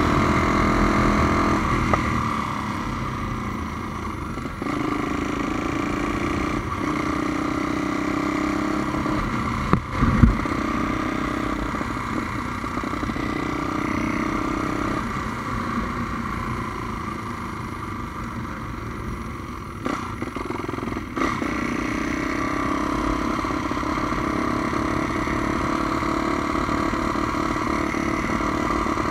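Honda Tornado single-cylinder motorcycle engine, bored out to 350 cc, running on the move, its note easing off and picking up again, with a few short breaks in the sound.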